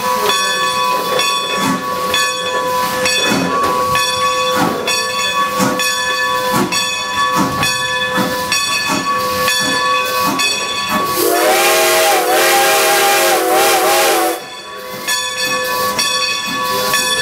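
Approaching steam locomotive: its bell ringing steadily, about one and a half strokes a second, over hissing steam. About eleven seconds in, the steam whistle sounds one long blast of about three seconds, and the bell keeps ringing after it.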